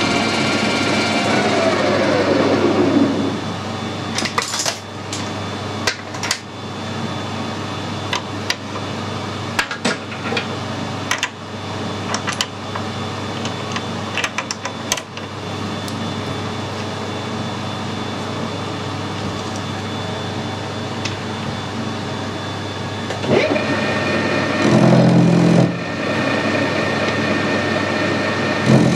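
Metal lathe with a four-jaw chuck running, then spinning down with a falling pitch about two seconds in. A series of clicks and knocks of metal being handled follows over a steady hum, and the lathe starts up again near the end.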